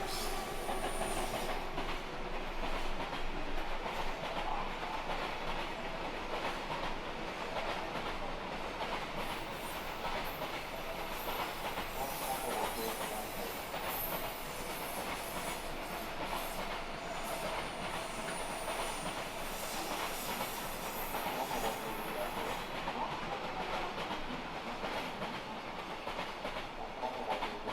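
A freight train hauled by an EF210 electric locomotive running through a station without stopping. There is a steady rumble of wagons with wheels clacking over rail joints, and a high wheel squeal briefly near the start and again past the middle.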